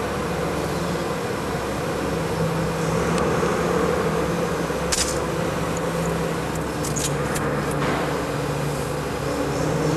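A steady mechanical hum, with a few short clicks and ticks about halfway through.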